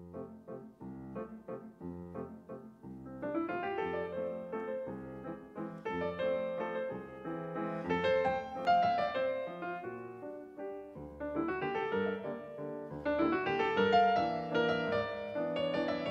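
Background piano music: light, separate repeated notes at first, growing fuller from about three seconds in.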